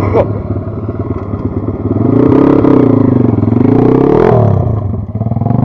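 Small four-stroke pit bike engine revving as the bike pulls away on dirt. The revs climb about two seconds in, rise again near four seconds, then drop and fade as it moves off.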